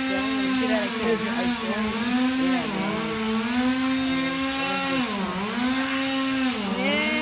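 Two-stroke chainsaw running at high revs, its pitch dipping briefly three times.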